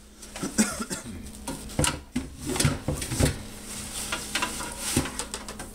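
Cloth bandoliers of loaded AR magazines being shifted and packed inside a large metal ammo can: fabric and strap rustling, with irregular knocks and clatters of the magazines against the can.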